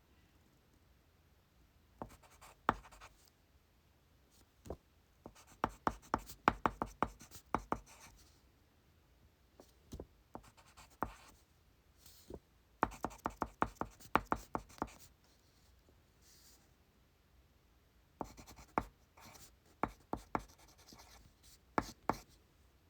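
Pencil writing on paper, heard as several bursts of quick tapping strokes with quiet gaps of a second or two between them.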